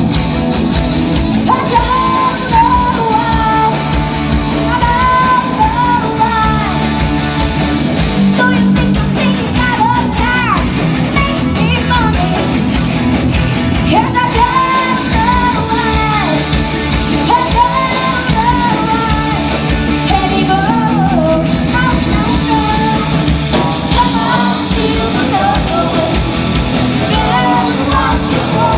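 Live hard rock band playing loudly: electric guitars, bass guitar and a drum kit under a lead vocalist singing.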